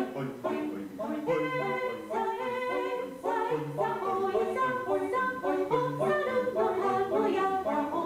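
Cheerful character jingle: a high voice sings short, bouncy syllables such as 'hoi' and 'hoisassa' over music.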